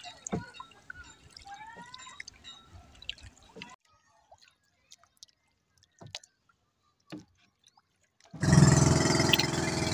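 Faint drips and lapping of water, then near silence with a few small clicks. About eight seconds in, a motorized outrigger boat's engine cuts in abruptly and runs steadily and loudly.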